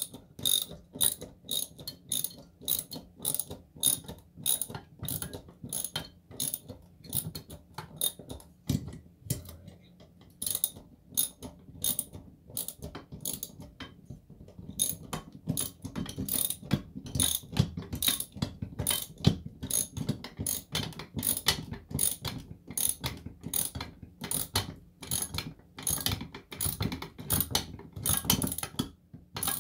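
Socket ratchet clicking as it drives a screw through a TV wall-mount bracket into the wall, about three clicks a second, with a short pause about halfway through.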